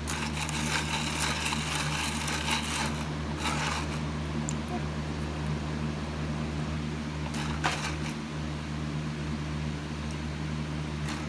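A steady low mechanical hum, like a household fan or air conditioner running. Over it comes a scratchy, hissy rustling for the first three or so seconds, then again briefly near the eight-second mark.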